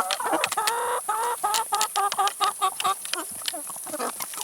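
Chickens clucking: a longer call, then a quick run of short clucks about four or five a second, with sharp pecking clicks as they eat vegetables.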